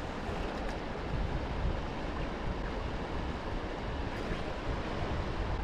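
Steady rush of fast river current running over rocks, with wind rumbling on the microphone.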